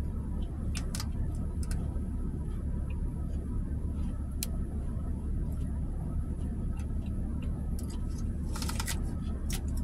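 Steady low rumble of a car's engine idling, heard inside the cabin, with a few faint clicks of a fork against a plastic salad container and a cluster of them near the end.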